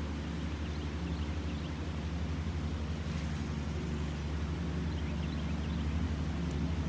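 Steady low motor hum, like an engine running, with a few faint short high chirps about a second in and again about five seconds in.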